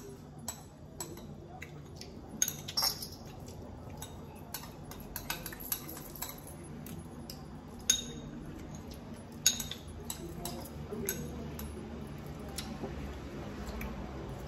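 Spoons clinking against dishes: irregular light clicks, with a few sharper knocks.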